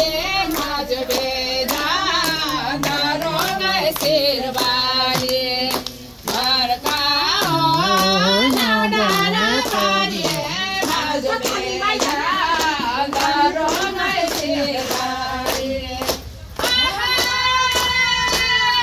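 Women singing a song together, with a steady beat of hand claps.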